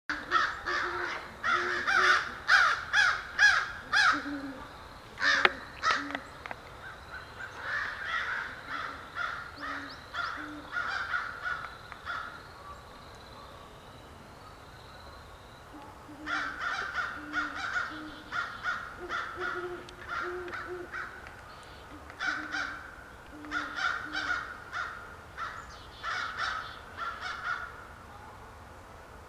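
Crows cawing in rapid bursts of several harsh calls, about three a second, with a quieter stretch midway. Short low owl hoots sound under the caws, and there is a single sharp click about five seconds in.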